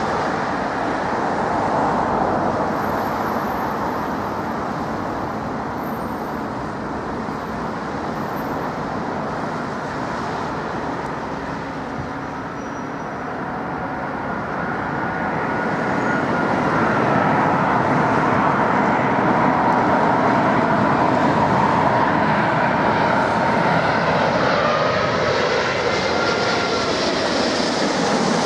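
Airbus A380 jet airliner on final approach, its four Rolls-Royce Trent 900 engines giving a steady roar that grows louder about halfway through as the aircraft comes nearer. In the second half a faint whine from the engine fans slides in pitch.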